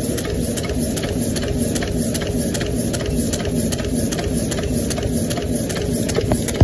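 Roll-fed paper-cup die-cutting machine running in a test, its punching press stamping in a steady rhythm of about two to three strokes a second over a constant mechanical hum. A single sharper click comes at the very end.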